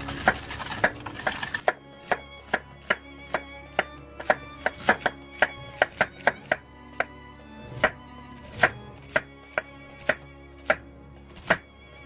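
Kitchen knife slicing an onion thinly on a wooden cutting board: sharp knocks of the blade against the board, about two a second at an uneven pace.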